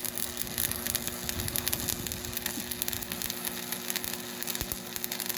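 Electric arc welding: the arc crackles and sizzles steadily with a rapid scatter of small pops, over a steady electrical hum.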